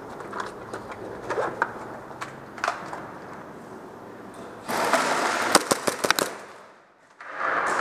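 Airsoft guns firing in close quarters: a quick run of sharp cracks over a rushing noise about five seconds in, after scattered clicks and knocks.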